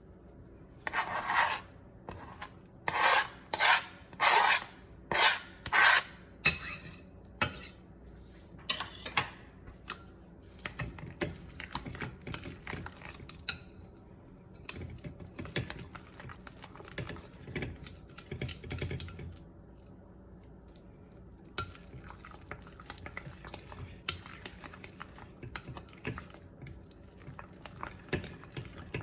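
A kitchen utensil stirring and scraping against a dish. About eight loud strokes come in the first nine seconds, then lighter scraping and occasional clinks.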